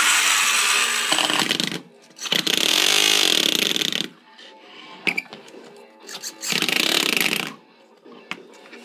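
RC car on home-made tires studded with screws, driven in three hard bursts: the screw heads scrape and clatter against the ground while the motor runs up, with the motor's pitch rising and falling during the middle burst.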